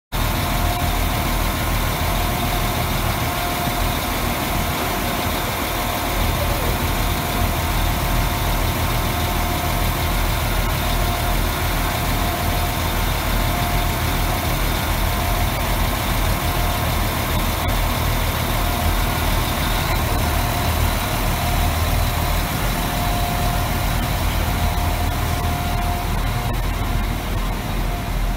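Trenitalia ATR 365 tilting diesel multiple unit idling steadily while standing at a station platform: a low engine rumble under a constant whine.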